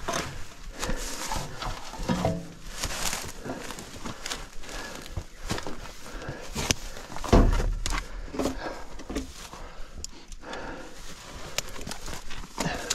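Footsteps on loose rock and gravel on a steep hiking trail, an irregular run of scuffs and crunches, with one heavy low thump about seven seconds in.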